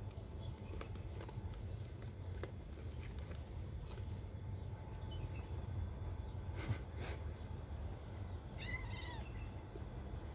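Kittens play-fighting: soft scuffling and rustling against shoes and the floor, with a louder scuffle about six and a half seconds in, and one short meow near the end.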